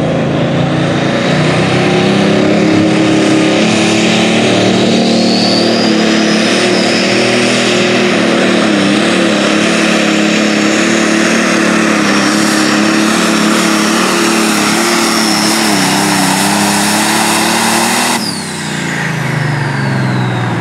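Pro stock pulling tractor's turbocharged diesel engine running flat out under load as it drags the sled, with a high turbo whine over the engine and its pitch wavering slightly. About 18 seconds in the throttle is cut and the engine and turbo whine wind down, falling in pitch.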